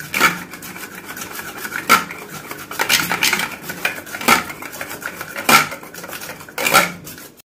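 Wire whisk beating thick cake batter in a stainless steel bowl: a steady scraping of the wires against the metal, with a sharper clink of the whisk on the bowl's side every second or so.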